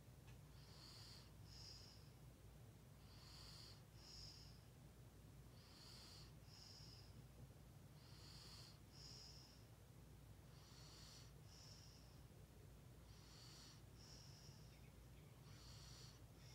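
Faint, slow rhythmic breathing, one breath about every two and a half seconds. Each breath comes in two parts, a soft hiss followed by a short whistle, over a low steady hum.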